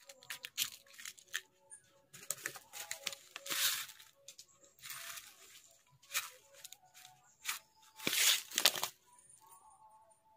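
Irregular rustling and scraping noises of half a second or so, the loudest near the middle and about eight seconds in, mixed with scattered sharp clicks, over faint music.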